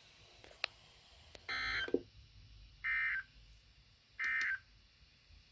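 Three short electronic beeps, each a steady chord-like tone about half a second long, spaced about 1.3 seconds apart, over faint radio hiss.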